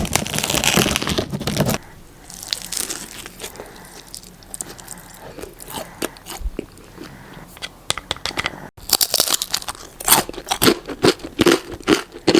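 Crisp rice-flour pizza crust crunching as it is bitten and chewed. There is a loud crunching at the start, soft scattered crackles in the middle, and a quick run of crunches in the last few seconds.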